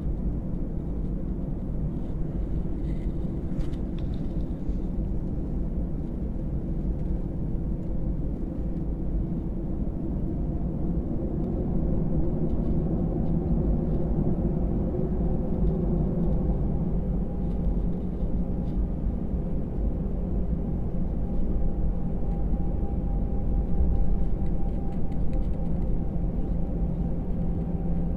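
Cabin noise of an Airbus A319-112 taxiing, heard from a seat over the wing: a steady low rumble from its CFM56 engines at taxi power with a few steady hums on top. About twelve seconds in the engine tones edge upward and the noise grows a little louder.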